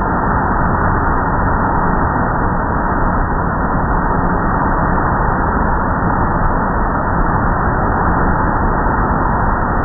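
Car wash equipment running: a loud, steady, even rushing noise that does not change.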